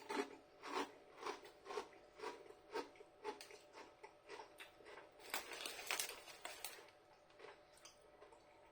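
A person chewing Hunky Dorys crinkle-cut salt and vinegar crisps, a crunch about twice a second, with a louder, denser stretch of crunching about five to six and a half seconds in before it tails off.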